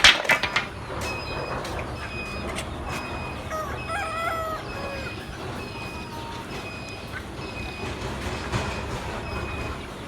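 A sharp clatter right at the start, then a rooster crows once, about four seconds in. A short high peep repeats evenly, about every two-thirds of a second.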